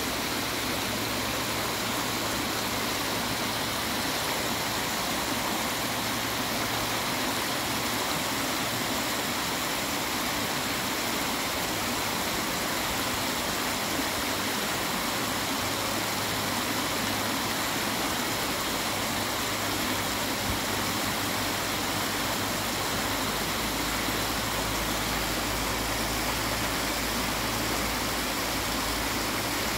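Shallow stream rushing and splashing over a rocky bed in a steady, even rush. A low rumble sits underneath and grows stronger in the last few seconds.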